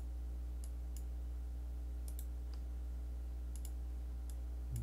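Computer mouse clicks: about seven or eight short, sharp single clicks spaced irregularly, over a steady low hum.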